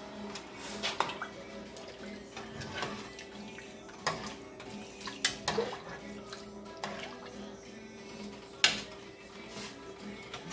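Kitchen handling noises: a few scattered sharp clicks and rustles, the loudest near the end, over a steady low hum.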